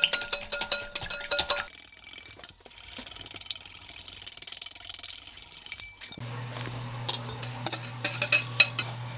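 Wire whisk beating egg whites in a glass bowl: fast clicking of the tines against the glass, with the bowl ringing. The clicking gives way to a soft hiss as the whites foam. About six seconds in a low steady hum starts, and more clinks sound against the bowl.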